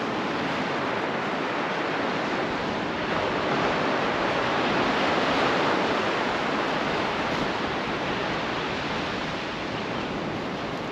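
Surf breaking on a sandy beach, mixed with wind noise. It swells to its loudest in the middle, then eases off.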